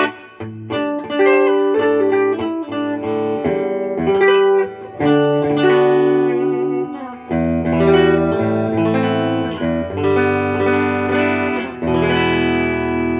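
Fender Modern Player Jazzmaster electric guitar played through an amp on its bright-sounding bridge pickup: a run of ringing chords and picked notes, with a fuller chord struck about seven seconds in and another near the end.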